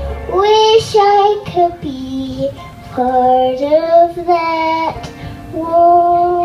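A child singing a slow melody solo, holding long notes.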